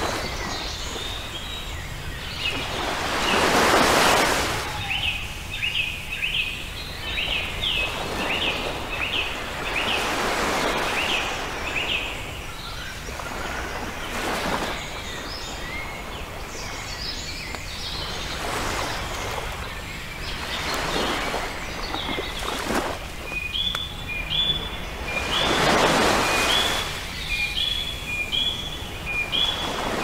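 Sea waves breaking and washing onto a shingle beach, swelling every few seconds. Over them a bird calls in two runs of short, evenly repeated chirps.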